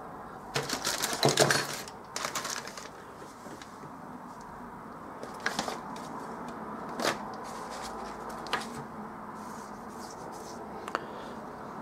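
Small clicks and rustles of hands handling small plastic parts on a workbench: a cluster of clicks and rustling in the first few seconds, then single sharp clicks every second or two.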